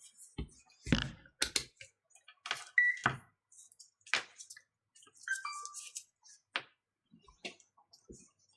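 Hands handling small tools and parts on a bench: irregular clicks, taps and light knocks, with two short high squeaks about three and five seconds in.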